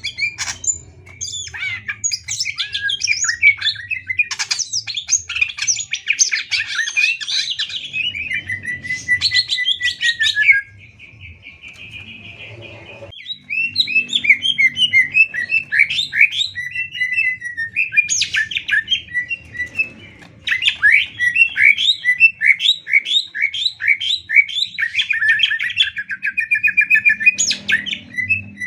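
Greater green leafbird (cucak ijo) singing a long, varied song of fast chattering and whistled notes, broken about ten seconds in by a quieter steady trill before the rapid, repeated notes start again.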